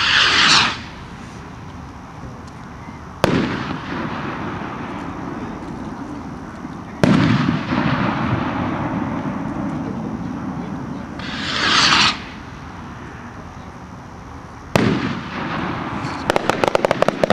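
Hand-made skyrockets: twice a rocket goes up with a swelling whoosh, and three sharp bangs of bursting rockets each trail off in a long echoing rumble. Near the end comes a rapid crackle from the bursting stars.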